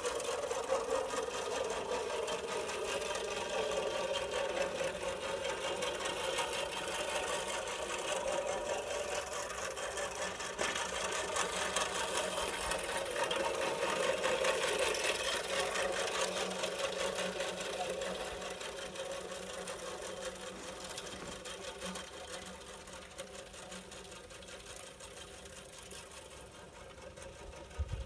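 Homemade radio-controlled lawn mower whirring steadily as it drives over the grass with its cutting blade spinning. It grows louder as it passes close about halfway through, then fades as it moves away.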